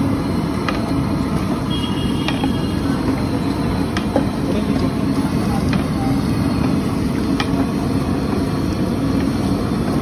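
A steady low rumble, with faint metallic clinks every second or so as a long steel rod stirs thick masala in a large aluminium pot.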